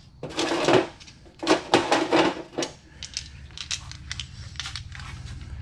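Handling a shop rag and small metal parts on a metal tool cart: two stretches of rustling and crinkling, then a run of light clicks and ticks.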